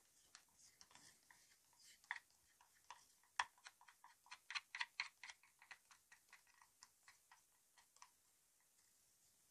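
Faint, irregular light clicks and taps, several a second, thickest around the middle and thinning out near the end.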